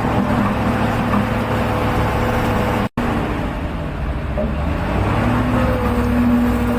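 Heavy diesel engine of earthmoving machinery running steadily with a constant low hum. The sound cuts out for an instant about three seconds in.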